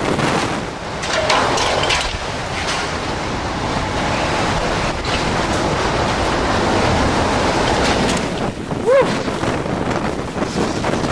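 Category 4 hurricane wind rushing through a building corridor as the back eyewall arrives after the eye, a loud steady noise that buffets the microphone. A short wavering tone rises and falls about nine seconds in.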